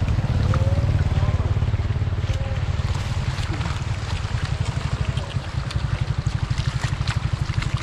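Shallow floodwater rushing over a road, with splashes and scattered clicks as live fish thrash in a cast net being cleared by hand. A steady low rumble runs underneath.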